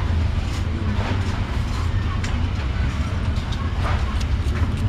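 Steady low rumble of street traffic, with a few light clicks and faint voices over it.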